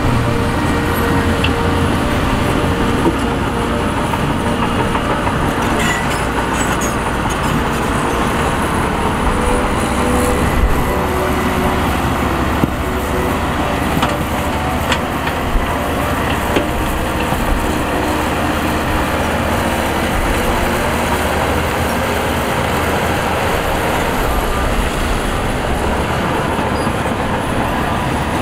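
Heavy diesel construction machinery running steadily, with a few faint knocks.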